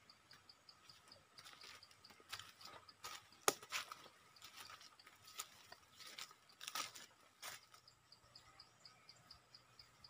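Irregular faint crackles and sharp clicks for several seconds in the middle, the loudest about three and a half seconds in, over an insect trilling in quick, even high pulses, about six a second.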